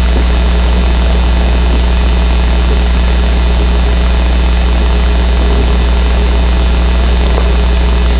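Loud, steady low electrical hum with a fainter higher hum line above it, unchanging throughout. Under it, faint scrubbing of a chalkboard eraser wiping the board.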